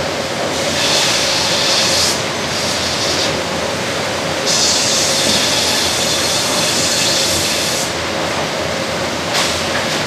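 McDonough band sawmill headrig sawing a log as the carriage runs along its track: steady loud machinery noise with a constant tone, and a high hiss swelling over it in stretches, the longest from about four and a half seconds in to nearly eight.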